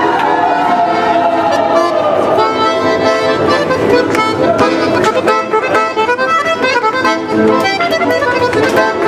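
Accordion playing a tune in sustained chords, with short sharp taps running through it.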